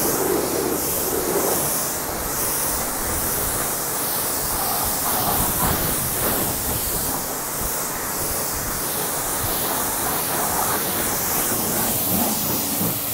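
Water spray from a hose spray wand hissing steadily onto a car's painted bodywork during the pre-rinse, with small rises and falls as the spray moves over the panels.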